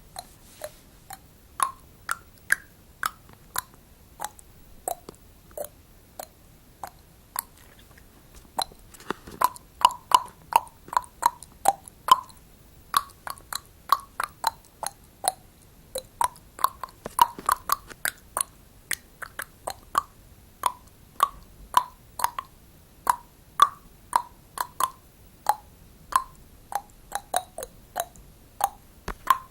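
A long run of short pops at irregular spacing, at times several a second, each with a brief hollow note.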